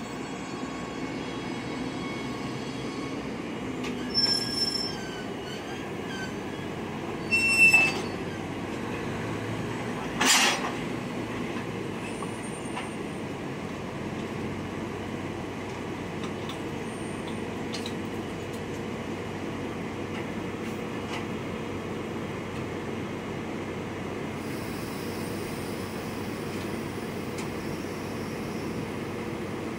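DD200 diesel-electric locomotive running steadily at low revs as it eases up to a container wagon, with high squeals from the wheels or brakes near 4 and 8 seconds in. About ten seconds in comes one sharp metallic clank with a short ring, the coupler engaging the wagon, after which the engine idles on steadily.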